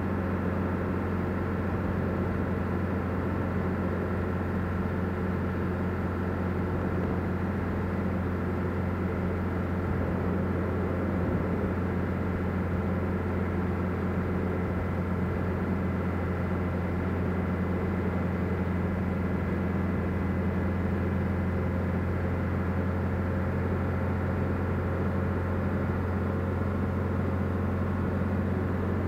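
Mercedes-Benz W115 240D's four-cylinder diesel engine running at a steady cruising speed, heard from inside the cabin together with tyre and road noise: an even, low drone that holds constant throughout.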